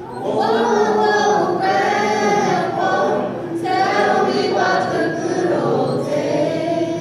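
A choir of children and teenagers singing together, in sung phrases with brief breaks between them.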